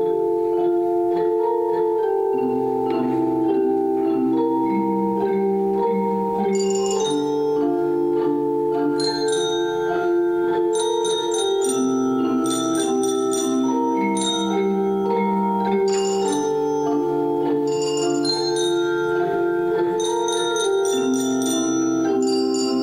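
An ensemble of mallet bar instruments (Orff-style xylophones) playing a tune in held notes that change every second or two. High, ringing struck notes join about six or seven seconds in.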